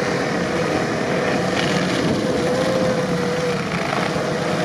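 Toyota Land Cruiser 70-series engine running under load as the truck crawls through deep snow, with a steady whine that wavers about halfway through.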